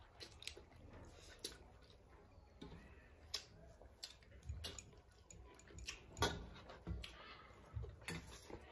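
Mukbang eating sounds of rice and fish curry being eaten by hand from steel plates: an irregular string of soft wet clicks and smacks from chewing and from fingers working the rice, the loudest about six seconds in.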